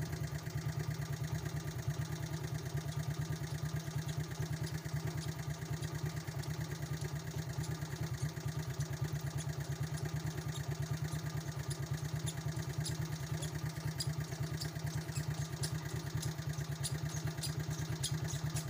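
An engine running steadily, with a fast, even thumping beat.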